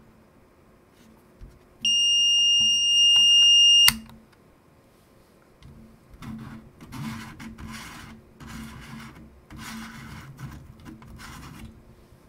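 Brymen BM786 digital multimeter giving one steady high-pitched beep of about two seconds as it is switched on, cut off by a click of its rotary switch. Then several seconds of rubbing and rustling from hands handling things close by.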